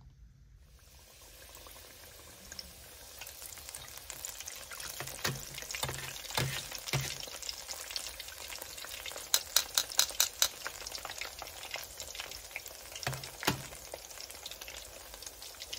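Egg rolls deep-frying in hot peanut oil in a Fry Daddy electric deep fryer: a steady sizzle that builds up about a second in as they go into the oil. Sharp pops and clicks come through it, with a quick run of them about nine to ten seconds in.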